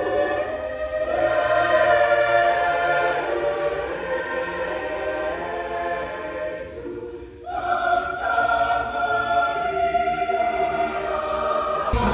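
High school choir singing a slow holiday song in long held chords, with a short break about seven seconds in before a new chord begins.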